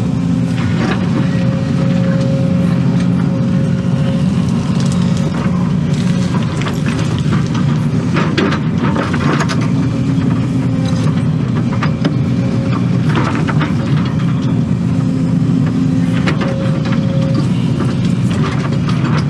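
Excavator's diesel engine running under load with a hydraulic whine that comes and goes as the boom and bucket move, heard from inside the cab. Scattered scrapes and knocks as the bucket digs through dirt and rocks.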